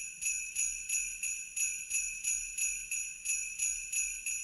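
Jingle bells shaken in a steady rhythm, about three shakes a second, over a continuous bright ringing.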